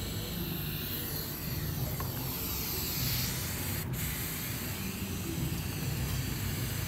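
A steady hiss over a low hum, with a brief dropout about four seconds in.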